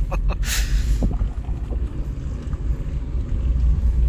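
Low rumble of a car on the move, heard from inside, with wind buffeting the microphone. A short hiss comes about half a second in.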